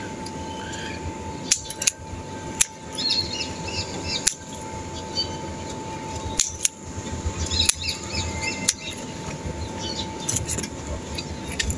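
Scissors snipping through holy basil stems, about eight sharp cuts spaced a second or so apart, as the plants are cut back to bush out.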